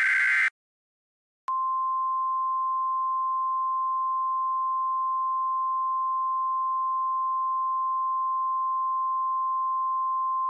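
The tail of an Emergency Alert System SAME digital header burst, a short buzzy data squawk, ends about half a second in. After a second of silence a single steady tone near 1 kHz starts, the 1050 Hz NOAA Weather Radio warning alarm, and holds unbroken.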